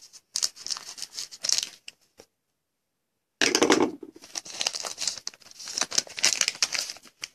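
Foil trading-card pack being crinkled and torn open by hand: crackling, rustling spurts, a short pause, then a louder burst of tearing and crinkling as the wrapper is pulled apart.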